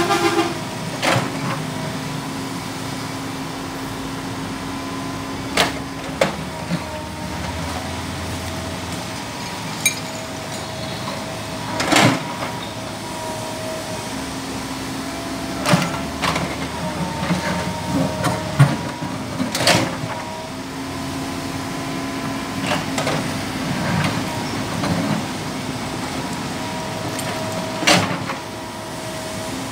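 Komatsu PC200 hydraulic excavator running with a steady engine hum while its bucket knocks against a brick wall and rubble: about a dozen sharp knocks and crashes of bricks, scattered, with a cluster in the middle and a loud one near the end.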